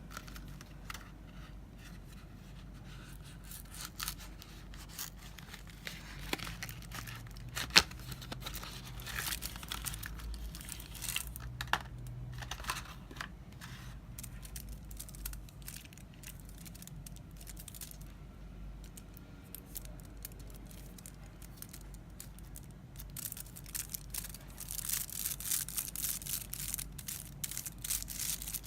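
Chocolate bar wrapper being torn open and crinkled by hand, with scattered sharp crackles and one louder snap. The crinkling grows dense near the end.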